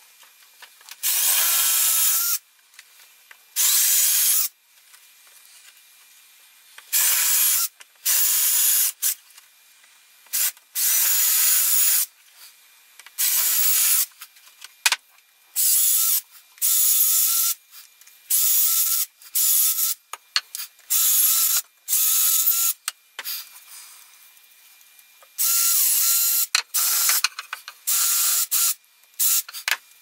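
Ryobi cordless drill boring holes through small wooden dowels in about twenty short runs of a second or less, each a high motor whine over the bit's hiss, with short pauses between as the next dowel is lined up.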